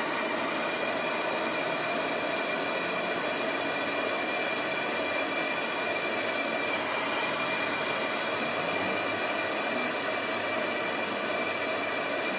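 Brazing torch flame hissing steadily as it heats copper refrigerant tubing at a refrigerator's solenoid valve, with a faint steady whistle.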